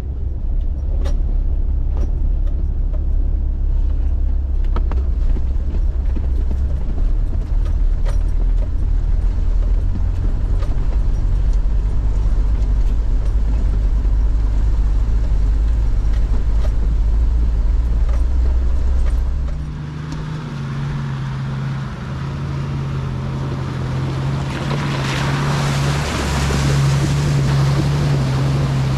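Four-wheel-drive vehicle driving a rough bush track: a heavy low engine and tyre rumble with scattered stone clicks. About twenty seconds in the rumble drops away to a steadier engine hum, and from about twenty-five seconds a rushing hiss rises, typical of water spraying as it drives into a creek crossing.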